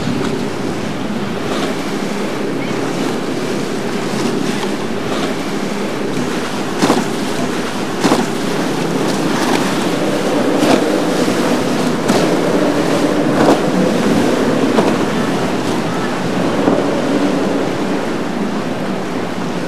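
Twin Yamaha 150 outboard motors running under the rush and splash of churning, rough water, with wind on the microphone. A few sharp slaps stand out from about seven seconds in.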